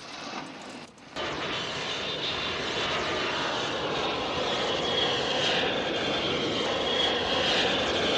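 Boeing 727 jet in flight, its Pratt & Whitney JT8D turbofan engines running: a steady rushing jet noise with a high whine on top, cutting in suddenly about a second in and growing slightly louder.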